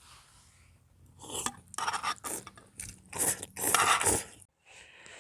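Irregular crunching and rustling close to the microphone, like the camera or phone being picked up and handled, cutting off abruptly about four and a half seconds in.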